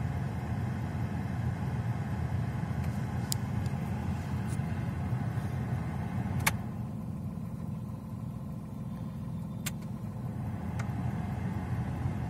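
Tata Tiago's three-cylinder engine idling steadily in neutral, heard from inside the cabin, with a few light clicks. About six and a half seconds in, a sharper click comes as the AC is switched off, and the airy hiss over the engine quietens.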